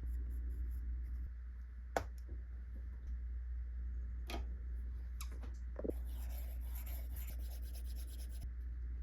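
Stylus drawing on a tablet screen: a few scattered taps, then a run of quick scratchy strokes about six seconds in, over a steady low hum.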